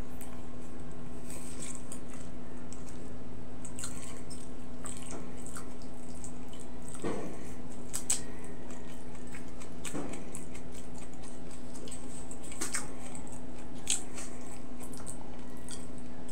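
Close-up wet chewing and lip-smacking of someone eating food by hand, with scattered short clicks, over a steady low hum.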